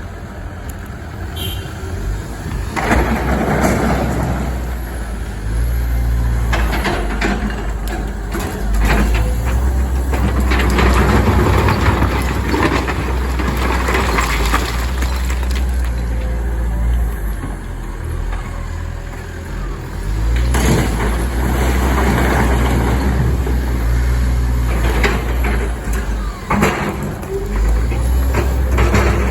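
Komatsu hydraulic excavator's diesel engine working under load, its rumble rising and falling as it digs and swings, with loose rock scraping and clattering in several long stretches.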